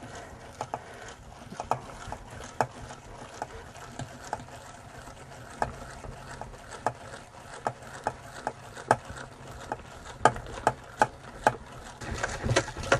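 Hand-cranked metal cheese mill being turned to force cottage cheese through its grating: sharp clicks and ticks as the crank goes round, about one a second, coming faster and louder near the end.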